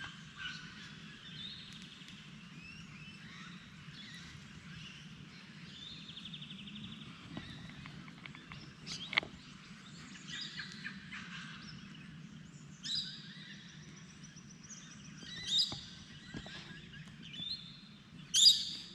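Several wild birds calling and trilling in bushland: short calls and rapid trills that grow louder, with the loudest calls near the end. A faint steady low hum runs underneath.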